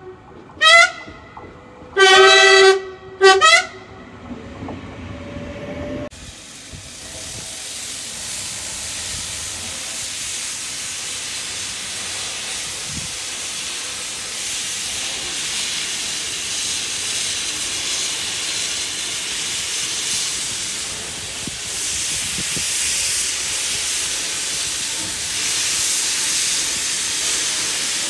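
A double-decker electric train's horn gives three short blasts, stepping in pitch, within the first four seconds. After an abrupt change about six seconds in, steam hisses steadily from a small steam tank locomotive, growing slowly louder.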